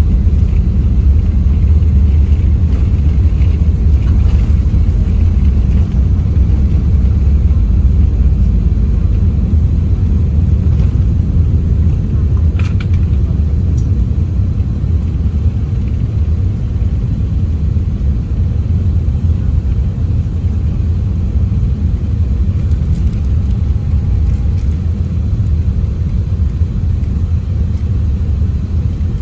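Steady low rumble of an Airbus A380 heard from inside the passenger cabin: engine and airflow noise, easing slightly in the second half.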